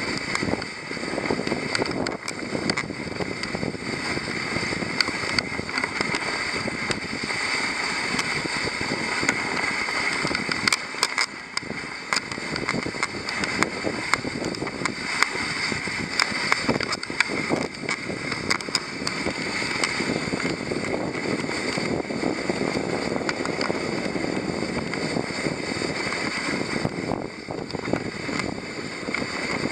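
Steady rushing hiss of dog sled runners gliding over packed snow, with wind buffeting the microphone and occasional light knocks.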